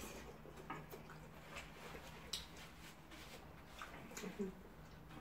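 Faint eating sounds: scattered clicks of a metal spoon against a plate while rice and stew are scooped and chewed, with a short murmur of voice near the end.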